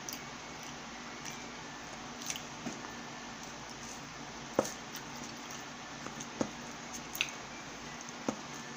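Eating sounds: wet chewing of lasagna, with a wooden spoon scraping and clicking against a paperboard takeout box. There are several sharp clicks, the loudest about halfway through, over a steady background hiss.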